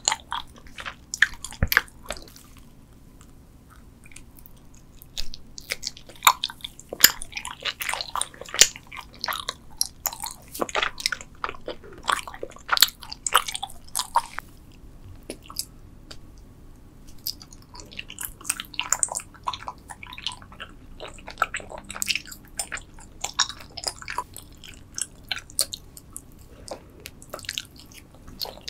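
Close-miked chewing of Trolli spider-shaped gummy candy: many quick, irregular mouth clicks and squishes, with a quieter pause of a few seconds near the start.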